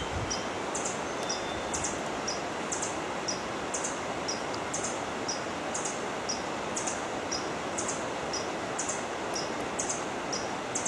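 A small animal's high, two-note chirping call repeating evenly about once a second, over a steady hiss.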